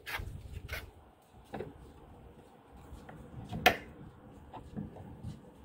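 A few scattered sharp clicks or knocks, the loudest about three and a half seconds in, over a low rumble.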